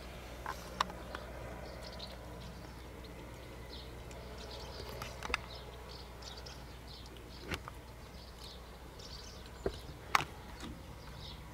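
Outdoor ambience with small birds chirping faintly throughout over a steady low hum. A handful of sharp, isolated clicks come from a kitten eating dry kibble off a plastic plate; the loudest is about ten seconds in.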